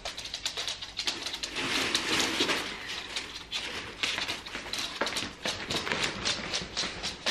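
Plastic shopping bags rustling and crinkling as they are lifted and carried, a dense run of irregular crackles that is thickest in the first few seconds.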